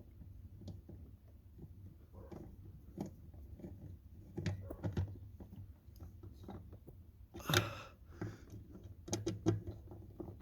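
Small clicks, taps and knocks of hand work on the pedal box mounting bolts and tools, with a louder brief clatter about seven and a half seconds in and a few sharper knocks around nine seconds.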